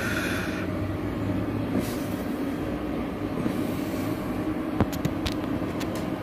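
A steady low mechanical hum, with a few faint clicks about three-quarters of the way through.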